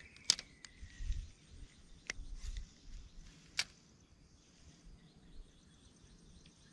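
Handling of a spinning rod and reel: a few sharp clicks and soft low bumps, mostly in the first four seconds, over a faint steady high-pitched background tone.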